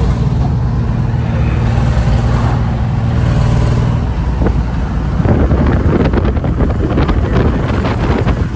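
Engine of a small van running as it drives along a road, heard from inside the open-sided cab. From about five seconds in, gusty wind buffets the microphone and covers the engine.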